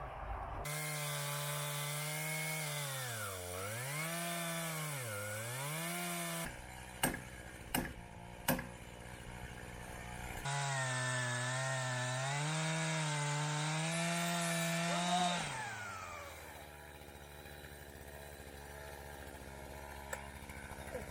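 Stihl two-stroke chainsaw cutting through a log, its engine pitch dipping twice as the chain loads up in the wood. After a few sharp knocks it cuts again, then drops back to a lower, steady idle for the last few seconds.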